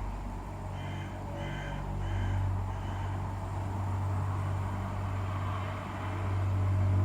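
A low, steady droning hum from the sky that swells twice, the unexplained sky sound being recorded, with a crow cawing four times starting about a second in.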